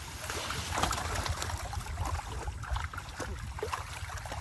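Water splashing and sloshing with irregular drips and small splashes as a fishing net is hauled up out of a fish pond, over a steady low rumble.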